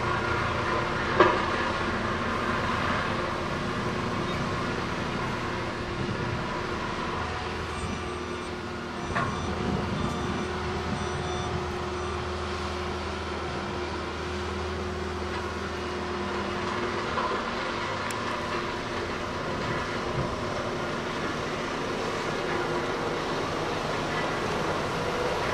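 Scania tipper truck's diesel engine running steadily, driving the hydraulics as the raised tipper body is lowered after dumping stone. A sharp knock about a second in.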